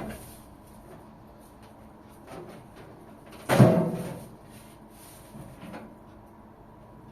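A few knocks and clunks from hard objects being handled: light ones at the start and near the end, and one louder clunk about halfway that rings briefly.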